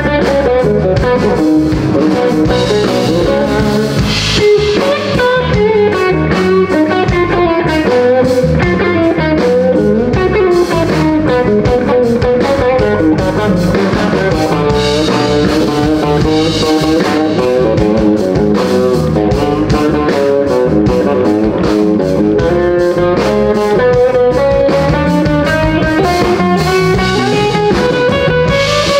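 Live blues band playing an instrumental passage, with electric guitar over a drum kit.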